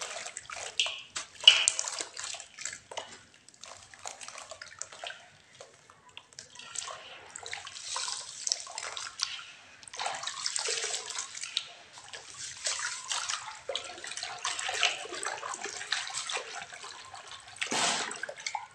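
Water splashing and sloshing in uneven spells as cowrie shells and clay toys are mixed in it, with sharp clicks in the first few seconds.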